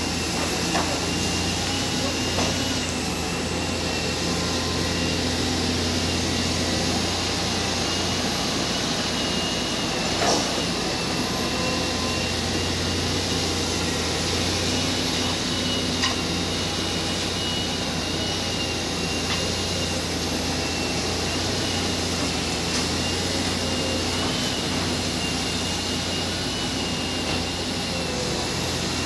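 Tracked demolition excavator running steadily, a constant low engine drone with a high wavering whine over it. A few sharp knocks, the loudest about ten seconds in.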